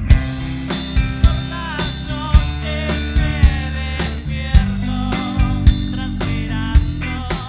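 Rock band playing a psychedelic rock song: drum kit hits over sustained electric guitar and bass, with bending guitar lines.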